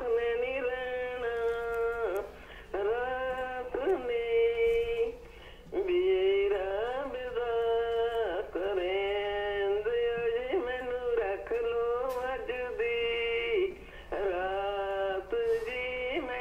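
A caller singing a song over the phone line: one voice holding long, slowly bending notes in phrases, with short pauses between them, and sounding thin.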